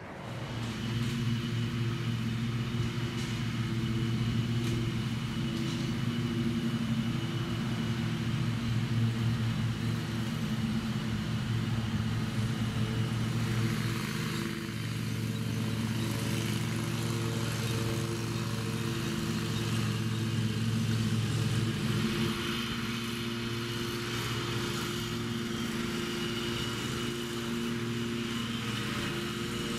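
An engine running steadily, its hum shifting slightly about halfway through and again later.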